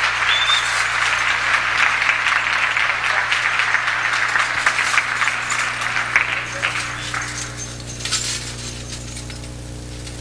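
Audience applauding, a dense patter of many hands clapping that tapers off over the last few seconds, with a steady low electrical hum underneath.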